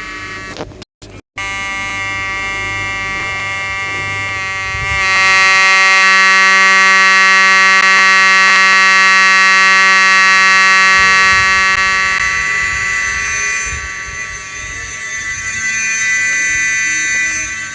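Fire alarm horn sounding continuously with a steady buzzing tone. It cuts out twice, very briefly, about a second in, and is louder for several seconds in the middle.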